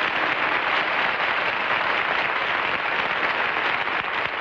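Studio audience applauding steadily, a dense, even clapping.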